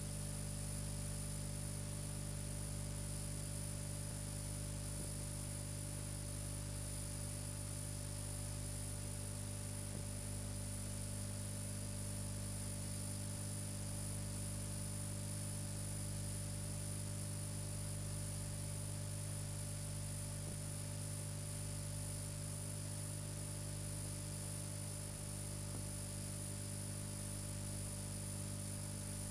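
Steady electrical hum and buzz with hiss and a thin high whine, unchanging throughout; no music or other sound.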